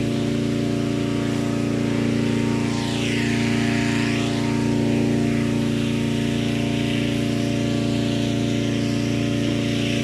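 Engine-driven inflation fan running at a steady speed, blowing cold air into a hot-air balloon envelope: a constant engine drone with propeller whir. A brief swish comes about three seconds in.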